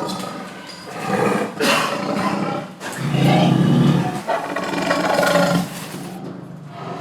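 A large animal calling, a run of several long calls with the loudest and deepest about three seconds in.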